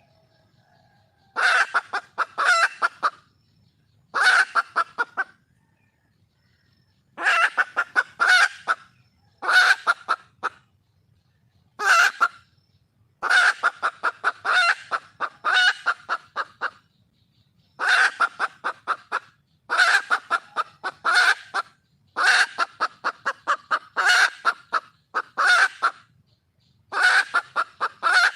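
A wild junglefowl hen calling for a mate: repeated runs of quick, clipped clucking notes, each run about a second long, with short pauses between.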